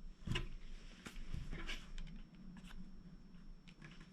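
Light handling noise from a phone and its charging cable: a scatter of faint clicks and rustles, with no charging chime.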